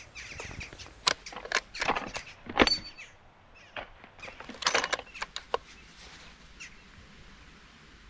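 Clicks, knocks and rustling from a stalker handling a scoped bolt-action rifle on shooting sticks while taking aim. One sharper metallic click about two and a half seconds in is the loudest. Quieter rustles follow.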